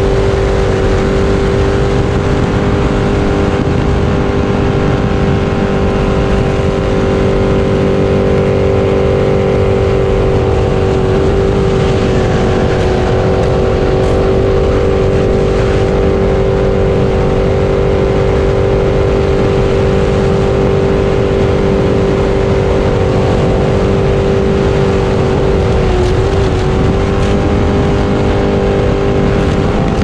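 Racing jet boat's engine running hard at a steady high pitch, heard from on board, over a steady rushing noise. The pitch dips briefly a couple of times near the end.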